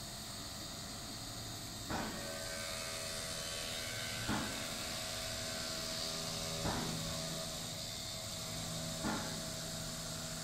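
Five-axis CNC machining center routing a wooden block: a steady high hiss of the spindle and cutter, with a short louder knock about every two and a half seconds, four times.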